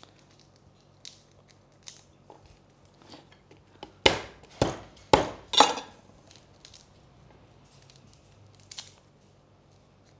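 Garlic cloves being peeled by hand, their papery skins crackling and tearing in small faint bursts. A little after the middle come four loud, sharp knocks about half a second apart.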